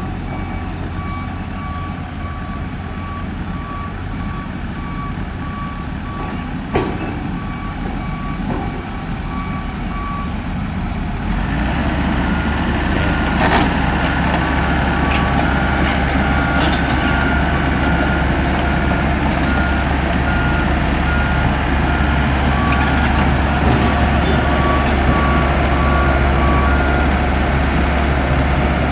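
Heavy construction machinery running during bored-pile drilling. A deep engine hum grows louder about twelve seconds in, with steadily repeating warning beeps throughout, a single knock around seven seconds and scattered sharp clinks later.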